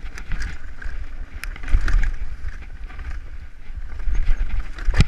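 Mountain bike riding down a rocky, leaf-strewn dirt trail: tyres crunching over stones and leaves, the bike clattering and knocking over bumps, with wind rumbling on the camera microphone. A sharp, loud knock comes near the end.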